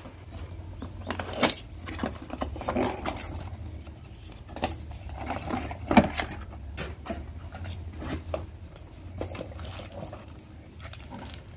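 Cardboard packaging being handled: box flaps opened and a cardboard insert pulled out, with irregular scraping and rustling, a sharp knock about halfway through, and glass bangles clinking on the wrist.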